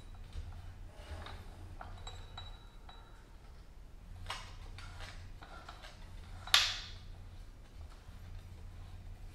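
Hand-cranked homemade metal rolling machine bending a 5/16 bar into a ring: a few light metallic clicks and clinks as the bar feeds through the rollers, the loudest one about six and a half seconds in.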